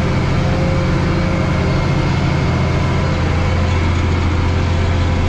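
Farm tractor's diesel engine running steadily under load while pulling a harrow, heard from inside the cab as a constant low hum.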